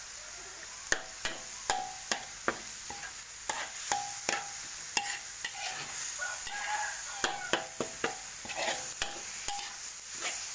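Metal spatula scraping and knocking against a metal wok while stir-frying. The knocks come about two to three a second, many with a short metallic ring. Under them runs a steady sizzle of chili paste and minced frog meat frying in oil.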